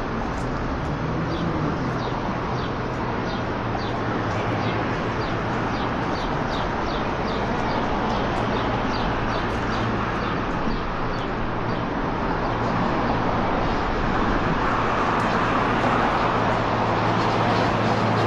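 Steady street traffic on a busy city road, with engines running. A small bird chirps over it, a quick run of short high chirps about two or three a second, stopping about halfway through.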